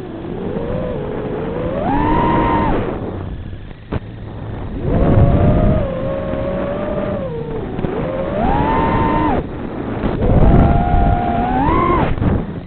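FPV racing quadcopter's brushless motors whining, the pitch climbing and falling with the throttle in about three surges, over a low rumble.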